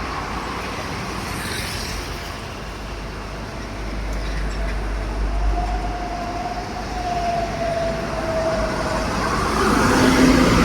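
Heavy road traffic of large trucks passing, a steady rumble and tyre noise. A faint, drawn-out tone sinks slightly in pitch in the middle, and a truck engine grows louder near the end as one comes close.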